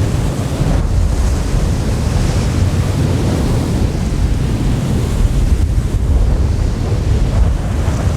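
Windstorm: strong wind blowing and buffeting steadily, with a deep rumble and gusts that swell and ease every second or two.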